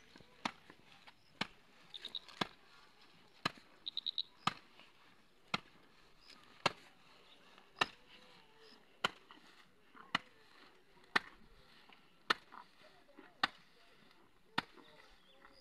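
A machete chopping maize leaves against the ground, one sharp chop about every second, about fourteen strokes in all, with two quick runs of light taps near the start.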